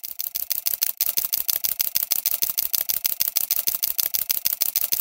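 Rapid, very even mechanical clicking, about ten clicks a second, growing louder over the first second and then running steadily: a clattering sound effect like an old film projector or a camera shutter.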